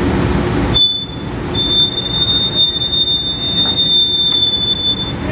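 High-pitched, steady metallic squeal from drilling rig floor machinery, starting about a second in and holding until near the end, over the rig's running noise.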